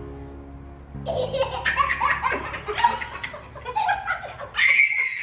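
Background music for about the first second, then a young child laughing and giggling loudly in quick bursts.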